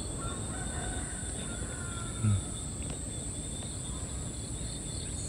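Insects chirring in a steady high drone over a faint low outdoor rumble, with one brief low vocal hum about two seconds in.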